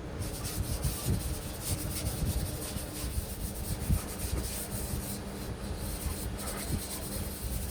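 Wood being sanded by hand: irregular rubbing and scraping strokes of abrasive across a wooden surface.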